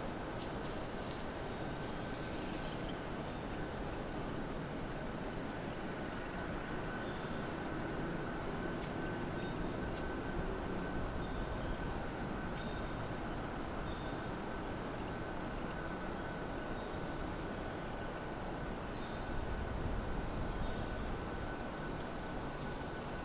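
Outdoor ambience: a steady low rumble, with short high chirps repeating a couple of times a second and a thin steady high tone under them.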